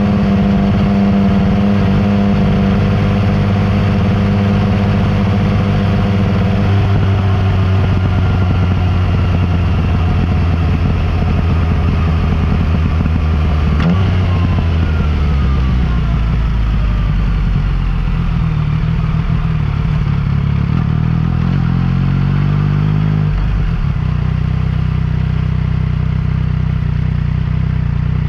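Yamaha MT-09 Tracer's three-cylinder engine through an Akrapovic exhaust, heard while riding. It runs at steady revs, the revs fall about halfway through, climb again a few seconds later, and then settle at a lower steady note.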